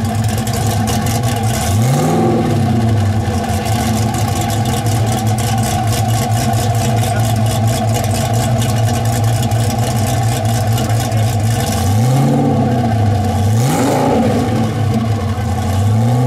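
Hennessey Venom F5's twin-turbo V8 idling, heard from behind at the exhaust. It revs lightly once about two seconds in and twice more close together near the end, the pitch rising and dropping back each time.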